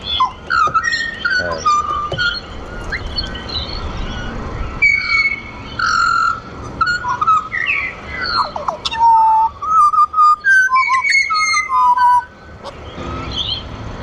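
Several pied butcherbirds singing together: a chorus of clear, fluting whistled notes and glides that overlap one another, with a short lull about twelve seconds in.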